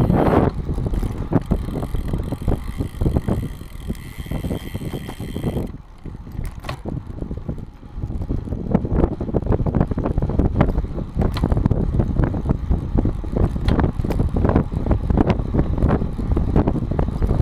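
Bicycle rolling over rough, cracked asphalt, heard through a GoPro mounted under the saddle: a low road rumble with many rattling clicks and knocks, plus some wind on the microphone. It quietens for about two seconds around six seconds in, then the rattle picks up again.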